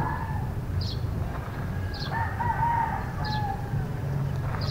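Rooster crowing: one drawn-out crow about two seconds in, with the tail of another at the very start. A short high chirp repeats a little faster than once a second behind it, over a steady low hum.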